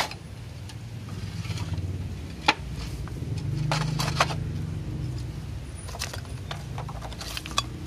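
Clay roof tiles clinking and knocking against each other as they are shifted, with scraping in the debris between them. A steady low rumble runs underneath.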